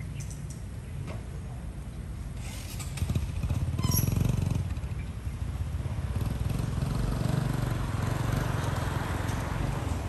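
Steady low rumble of city traffic with motorcycles going by, swelling about three seconds in and again in the second half.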